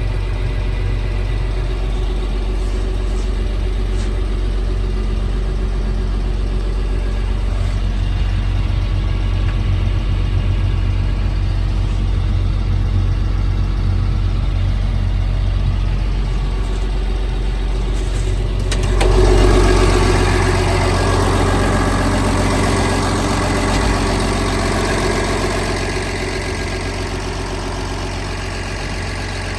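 Liebherr PR756 bulldozer's diesel engine running steadily with a deep hum. About two-thirds of the way through it grows louder and harsher as it takes on more revs or load, then settles back down near the end.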